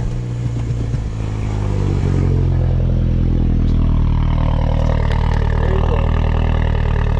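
Mini Cooper S's turbocharged four-cylinder engine idling just after a cold start, uneven for about the first two seconds and then settling into a steady idle. It is running on freshly replaced ignition coil packs, fitted to cure a misfire.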